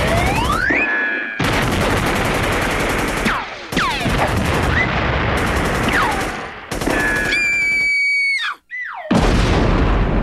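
Cartoon battle sound effects: dense gunfire and explosions, broken by the whistles of falling shells. Near the end a long high whistle drops in pitch, cuts out for a moment, and a big explosion goes off.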